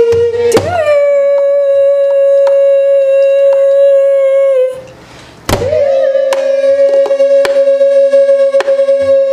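A woman singing Korean gueum, wordless vocal mouth-music, in two long held notes with a short break about five seconds in, over scattered strokes on a buk barrel drum.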